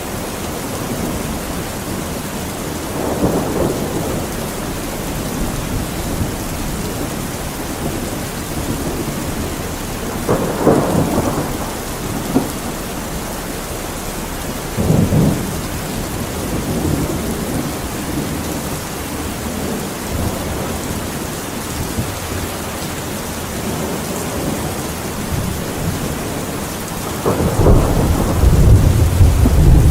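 Steady rain with thunder rumbling several times, the longest and loudest roll near the end.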